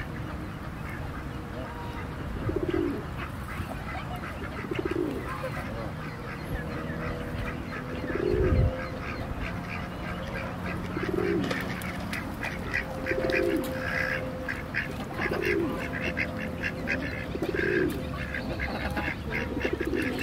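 Ducks and Canada geese calling on a pond: a short low call repeats about every two seconds, and from about halfway through quick, rapid calls join in. A single low thump comes about eight seconds in.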